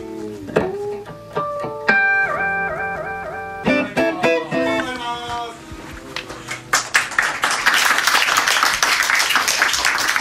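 Guitar picking single notes and short phrases, with a bent note near the start. From about seven seconds in, a dense crackling noise full of quick ticks covers it.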